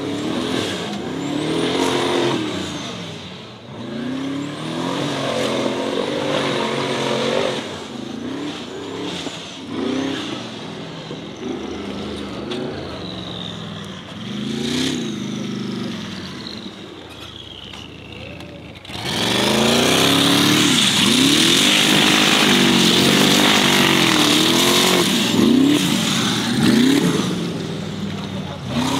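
Formula Offroad hill-climb buggy's engine revving hard and unevenly as it fights up a loose gravel slope, its pitch climbing and dropping again and again with the throttle. About two-thirds through the sound suddenly gets much louder and stays that way.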